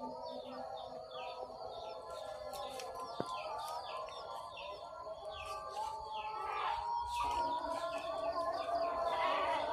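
Small birds chirping continuously in short, quick falling notes, repeated several times a second.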